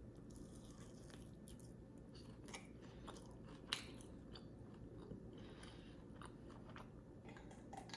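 Faint chewing of a mouthful of pan-fried squirrel in gravy, with small moist clicks and one sharper click near the middle.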